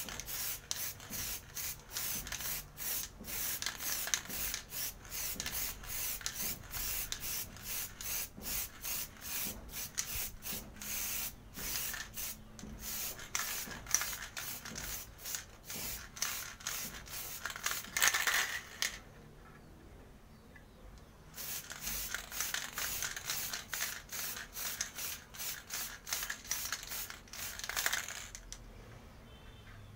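Aerosol can of black metallic Samurai Paint spraying in many short, quick bursts of hiss as the second, final thick coat goes onto a helmet peak. It pauses for a couple of seconds about two-thirds of the way in and is fainter near the end.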